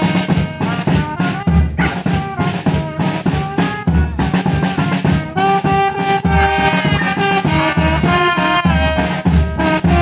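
Brass band playing: trombones and trumpets holding sustained melody notes over a regular bass-drum beat.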